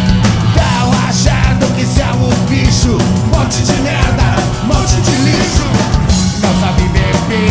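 A rock band playing loud, dense punk-style rock live, with a drum kit and amplified instruments.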